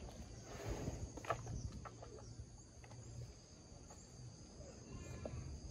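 Asian elephant eating fruit: a few soft crunches and rustles in the first second and a half as the food goes into her mouth, over steady insect chirring.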